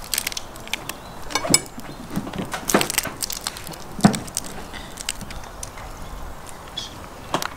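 Fried crawfish shells being cracked and pulled apart by hand: a run of irregular sharp cracks and crunches, the loudest about four seconds in and another near the end.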